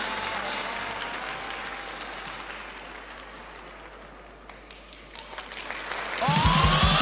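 Audience applause, fading steadily over about five seconds with a few scattered claps. Near the end, music with a heavy beat comes in suddenly.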